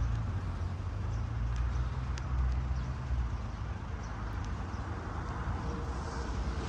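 Outdoor ambience made up of a steady low rumble of road traffic, with a few faint light ticks.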